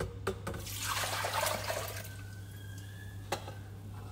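Ricotta whey being poured out of a plastic basin: a splashing gush of liquid lasting about a second and a half, with a few light knocks. A steady low hum runs underneath.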